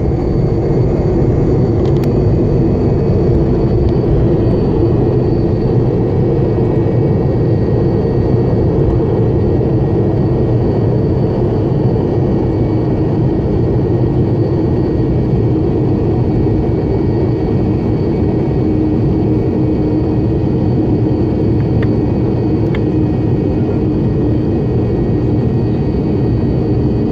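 Tu-134 jet engines running at steady power: a dense, even rumble with thin steady whistling tones above it.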